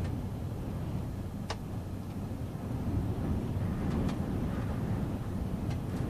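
Strong gusty wind buffeting a stopped car, heard from inside the cabin as an uneven low rumble that swells and eases. A sharp tick comes about one and a half seconds in, and a few more come later, like grit or rain striking the glass.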